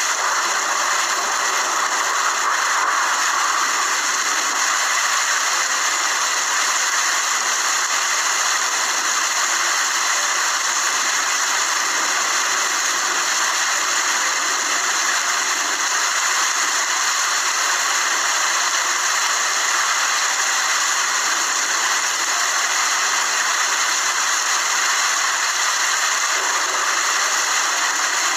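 Steady rain falling, a constant even hiss with no breaks or separate drops standing out.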